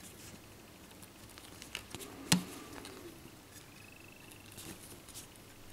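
Faint taps and clicks of a phone's screen digitizer and small parts being handled on a tabletop during a screen replacement, with one sharp click a little over two seconds in.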